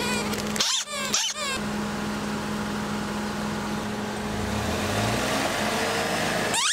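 Rubber squeaky toys squeezed by hand, giving two short squeaks about a second in. Then a car engine runs steadily and picks up with a low rumble from about four seconds in as the car begins to roll forward.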